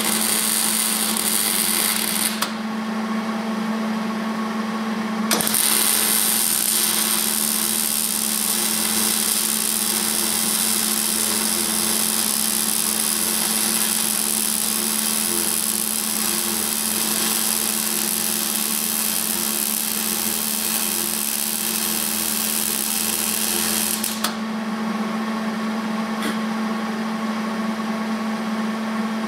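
Hobart welder's arc crackling and hissing as it welds the steel engine stand: a short run that stops about two seconds in, then one long run from about five seconds in until it stops near the end. A steady hum continues underneath throughout.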